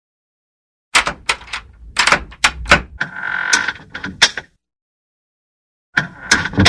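A door being worked, with a rapid run of sharp knocks and clunks. A short, high hinge squeak comes about three seconds in, and a brief second flurry of knocks with a squeak comes near the end.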